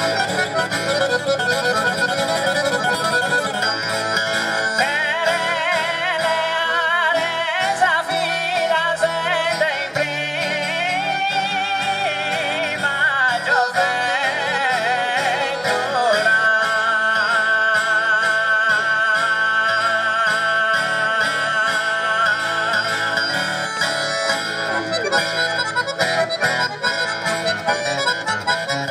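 Sardinian canto a chitarra in the "Re" mode: a man sings a long, ornamented vocal line over acoustic guitar and accordion accompaniment. About halfway through, a long wavering note is held for several seconds.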